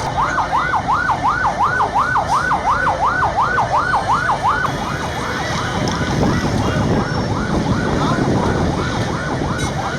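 Emergency vehicle siren on a fast warble, rising and falling about four to five times a second, loud for the first half and then fainter, over a steady low background noise.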